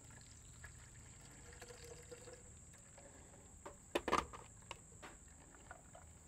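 Faint trickling and dripping of blended watermelon juice being poured through a mesh strainer screen, with a few sharp taps about four seconds in.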